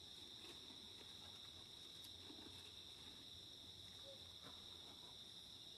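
Faint, steady high-pitched drone of an insect chorus, with a few faint ticks over it.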